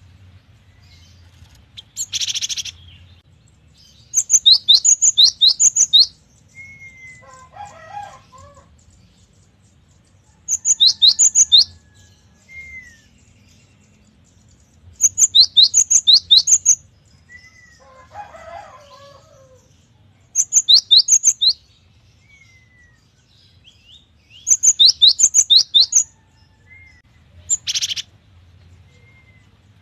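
Gelatik batu (cinereous tit) singing: five loud bursts of three or four quick, high, clear whistled notes, spaced a few seconds apart. A short harsh rasping call comes near the start and another near the end, with softer, lower chattering notes between the song bursts.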